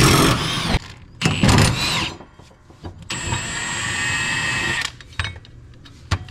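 Milwaukee M18 cordless impact wrench on a mower blade bolt: two short bursts rising in pitch, then a steady whine for about two seconds. A few light metal clicks follow near the end.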